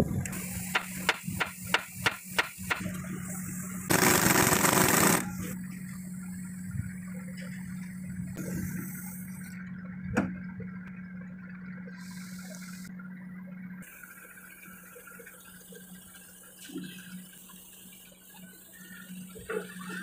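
Pneumatic impact wrench on a truck's wheel nuts: a quick series of sharp rattling bursts in the first few seconds, then a loud rush of air-like noise lasting about a second. A steady low hum follows and fades out about two-thirds of the way through, with a few scattered knocks.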